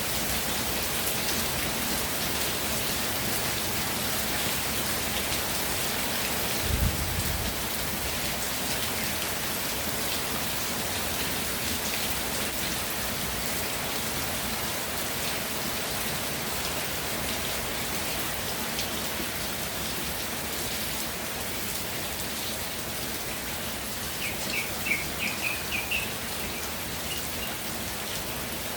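Steady rainfall pattering on surfaces. A brief low thump comes about seven seconds in, and a short run of high bird chirps sounds near the end.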